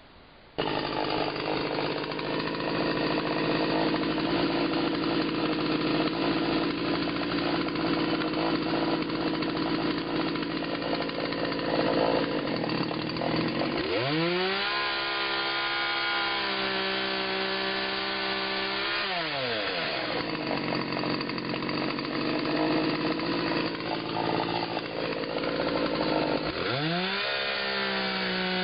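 McCulloch two-stroke chainsaw starting up at full throttle, dropping to idle about halfway through, revving up to full throttle again, then falling back to idle near the end.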